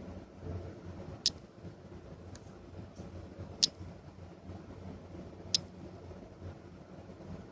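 Three sharp, light clicks about two seconds apart, with a couple of fainter ticks between them, over a low steady hum.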